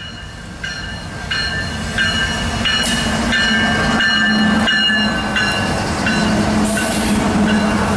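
Loaded CSX coal train with its diesel locomotives passing close by: a heavy rumble and the locomotives' engine drone grow loud about two seconds in as the lead unit goes past. Thin, high steady tones sound on and off over the first half or so.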